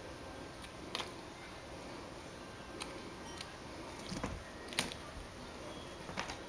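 Scattered light clicks and taps, about six in a few seconds, over a steady low hiss, from a pet playing with a bird toy.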